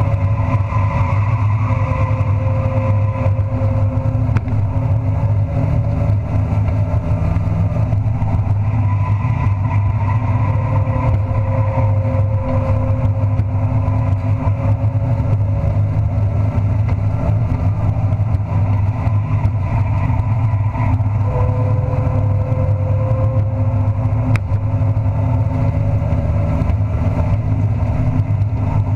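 Race truck engine heard from inside the cockpit, running hard under racing load; its pitch climbs gradually over several seconds, then drops back, three times.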